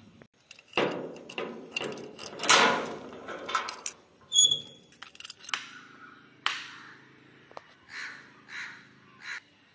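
Metal padlock and door hasp clicking and rattling as the lock is unlocked and pulled off. Near the end a crow caws a few times.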